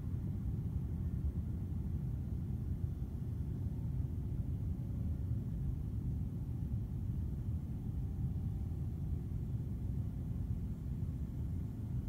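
Steady low rumbling noise with no distinct tone, holding an even level throughout.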